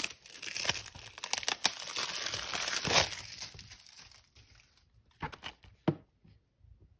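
Crinkling of plastic wrapping as a Blu-ray case is handled and turned over in the hands, a dense crackle loudest about three seconds in. This is followed by a couple of light taps of the plastic case near the end.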